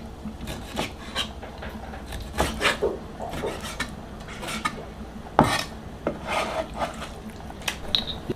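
Chinese cleaver slicing raw lamb into thin slices on a cutting board: irregular scraping strokes of the blade through the meat and against the board, with one sharp knock about five seconds in.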